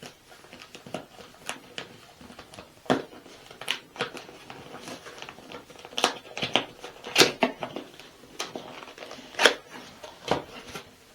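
Microphone's cardboard box and packaging being opened and handled: irregular crinkling with sharp snaps and knocks, several louder ones in the second half.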